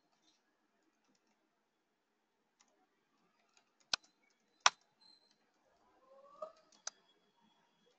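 Sparse typing on a computer keyboard: scattered faint key ticks, with two sharp, louder clicks near the middle and another near the end. A faint, short rising sound comes about six seconds in.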